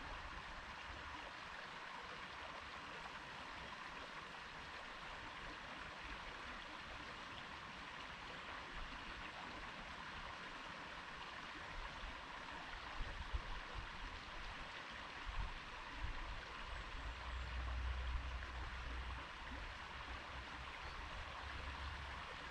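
Stream water flowing steadily. In the second half come intermittent low rumbles.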